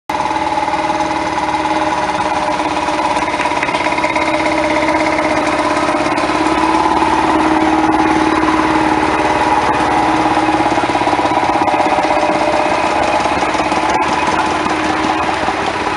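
Engines of vintage farm tractors, among them an Ursus C-25, running steadily at low speed as they drive slowly past, a little louder as the nearest tractor comes alongside.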